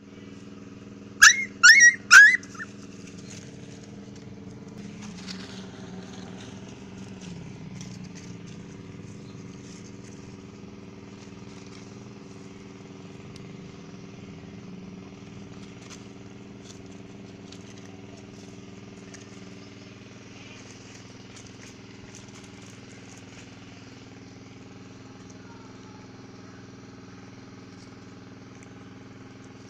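A puppy gives three short, high-pitched yelps about a second in. Under it a steady low motor drone runs throughout, with a few faint squeaks later on.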